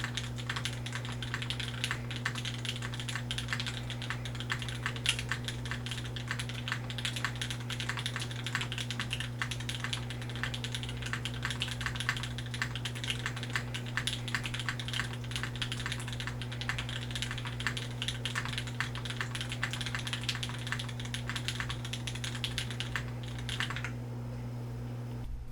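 Continuous typing on a Cumulus60 prototype 60% mechanical keyboard with an aluminum plate, leaf-spring silicone-ball mount, stock BSUN X switches and GMK Shoko keycaps: a dense, steady stream of key clacks that stops about a second and a half before the end. A steady low hum runs underneath.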